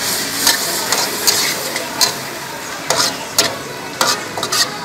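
A beef stir-fry sizzling in a steel wok, with a steady high hiss of hot oil. A metal ladle scrapes and clacks against the wok about twice a second as the food is tossed.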